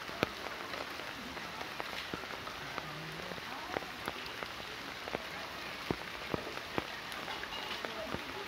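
Heavy rain falling steadily on flooded ground, an even hiss with sharp ticks now and then from large drops landing close by.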